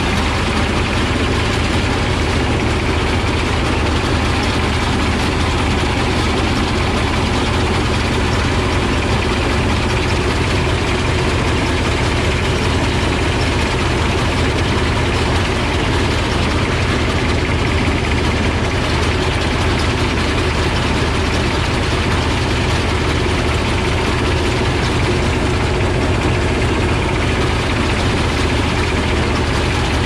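Motorised paddy thresher running steadily while bundles of rice stalks are fed into its drum.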